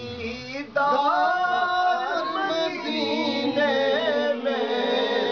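A man singing a naat, drawing out long held notes that bend and waver, with a short breath just before a second in.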